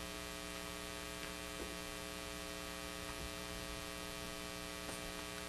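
Steady electrical mains hum, a constant buzz with many evenly spaced overtones.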